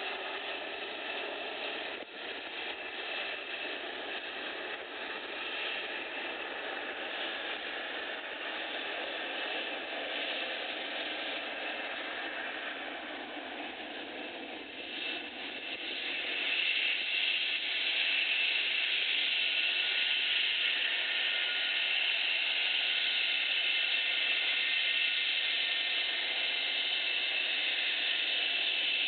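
English Electric Lightning's twin Rolls-Royce Avon turbojets running as the fighter taxis: a steady rushing noise with a high whine. It grows louder about halfway through, with the whine standing out more.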